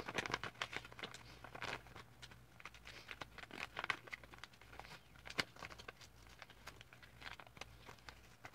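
Sheet of paper being folded and creased by hand close to the microphone to make a paper airplane: irregular crinkles and rustles, with a sharper click about five seconds in.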